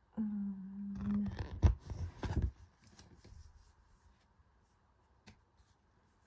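A short held hum at the start, then paper rustling with a sharp tap as a printed crochet pattern sheet is handled and turned over. Faint light handling sounds follow.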